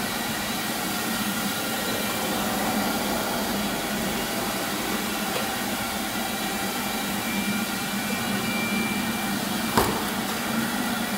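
Automatic carpet washing machine running: a steady hum over an even hiss, with one sharp knock near the end.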